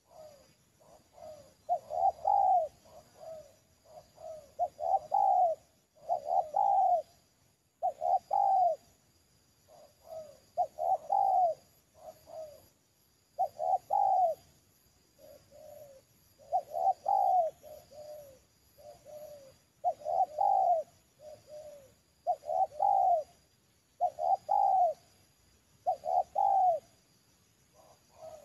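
Spotted dove cooing over and over, one phrase of a few notes about every two seconds.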